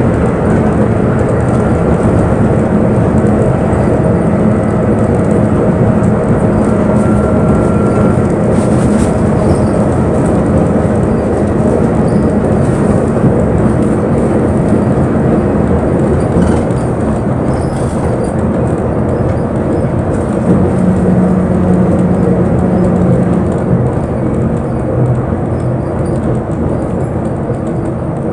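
Inside a moving bus: the engine drones steadily over road noise, easing off a little near the end.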